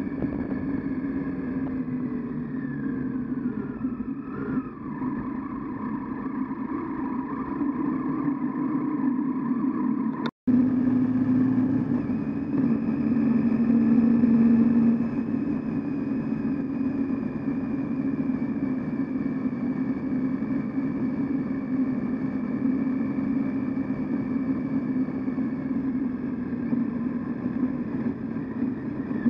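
Triumph Tiger 800XC motorcycle's three-cylinder engine running steadily while riding a gravel byway, its pitch shifting with the throttle and louder for a few seconds after the middle. The sound cuts out suddenly for a moment about ten seconds in.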